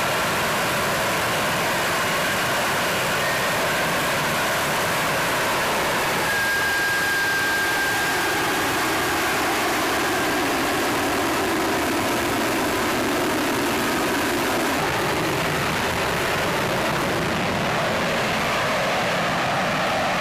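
F-35B Lightning II hovering in vertical-landing mode, its F135 jet engine and shaft-driven lift fan running with a loud, steady noise and a faint high whine. The highest hiss thins near the end as the jet draws away.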